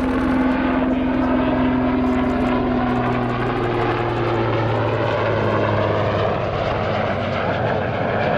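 Eurocopter AS532UL Cougar (Super Puma) military helicopter flying by, its twin turboshaft engines and main rotor giving a loud, steady drone. The tones in the drone shift and slide in pitch as the helicopter moves through its manoeuvres.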